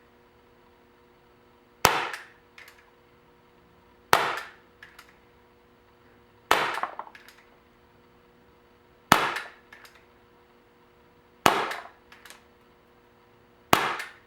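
Crosman Vigilante CO2 air pistol firing six shots, one about every two and a half seconds, each a sharp crack followed by a fainter click.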